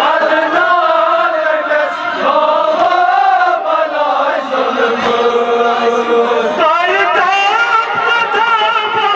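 Kashmiri noha, a Shia mourning lament, sung without instruments. A group of men chants the refrain together; about six and a half seconds in, the lead reciter comes in through the microphone on a higher line with a wavering pitch.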